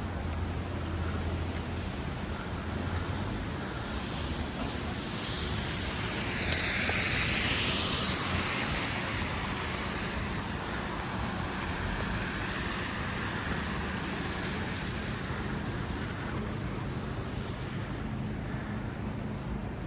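City street traffic: engines hum steadily while a vehicle passes, its tyre hiss on the slushy road swelling to a peak about seven seconds in and fading away.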